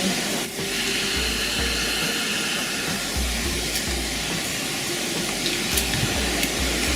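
Waterfall: a steady rush of falling water, with low rumbles coming and going underneath.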